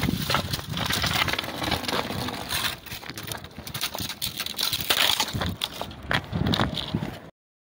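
Dry branches and twigs crackling and scraping as they are gathered and dragged over gravelly ground, mixed with footsteps, in dense irregular snaps; the sound cuts off abruptly near the end.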